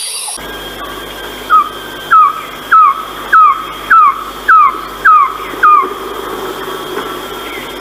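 Philippine trogon calling: a series of eight short notes, each dropping in pitch, evenly spaced at a bit under two a second, over a steady background with a thin high tone.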